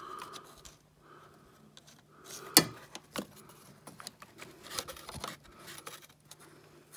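Light handling noises of hands and tools working on parts under a car: scattered small clicks and scrapes, with one sharp click about two and a half seconds in, over a faint steady low hum.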